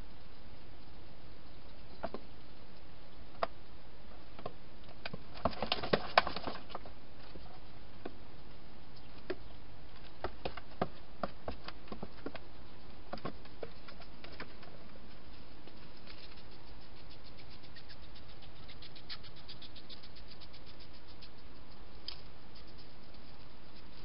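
A wild hedgehog feeding inside a plastic feeding station: irregular small clicks and scrapes of chewing and of its feet and spines against the plastic. A louder flurry comes about six seconds in, and a run of quick, faint clicks follows later.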